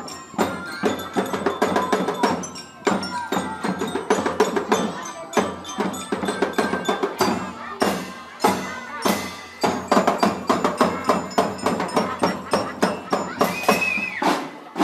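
School drum band playing: drums beating a steady marching rhythm under ringing bell-lyra notes, with a high held note about a second before the end.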